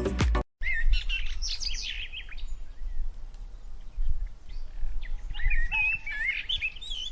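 Small birds chirping and twittering in quick, high, warbling notes, in two bursts of song with a pause between, over a low background rumble.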